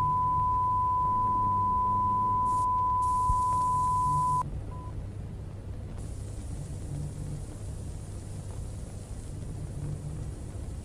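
A steady high-pitched electronic beep tone in the manner of an emergency-broadcast alert, held for about four seconds and then cut off suddenly, with one short blip after it. A low rumbling drone with faint hiss runs underneath and carries on after the tone stops.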